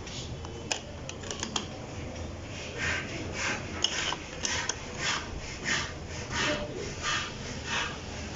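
Wrench tightening the nut on a car battery's negative terminal clamp: a few sharp metallic clicks, then a steady run of short rasping strokes, about three a second.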